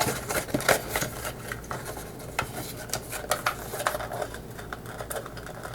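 Baseball card packs and a cardboard blaster box being handled: a run of irregular light clicks, taps and crinkles.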